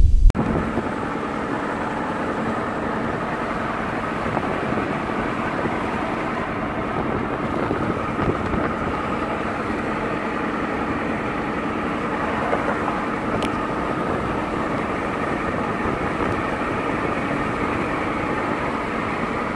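Steady rushing hum inside a car's cabin.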